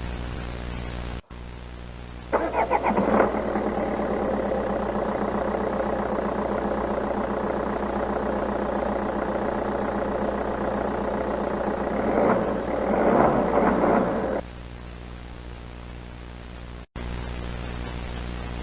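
Engine cranks and catches about two seconds in, runs steadily, goes rougher near the end and stops about fourteen seconds in. The sound is muffled and narrow, with static hiss before and after it.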